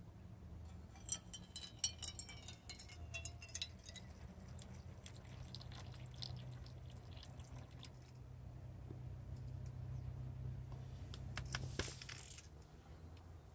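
Brewed coffee poured from a plastic French press into a stainless steel camping cup, opening with a quick run of clicks and clinks as the press is handled, then a soft steady pour. A few more sharp clinks come near the end.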